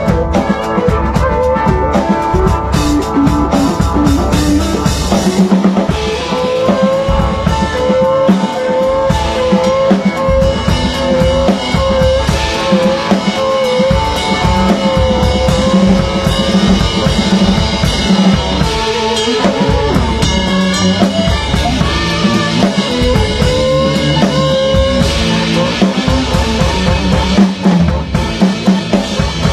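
Live rock band playing an improvised jam: a full drum kit with bass drum and snare keeps a steady beat under a held, slightly bending lead melody.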